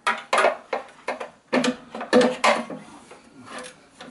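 Pliers working the fuel hose clip under the steel fuel tank of a Honda GX-type engine, with the tank shifting in its mounts: a run of sharp metallic clicks and knocks, about ten in four seconds, some with a brief ring.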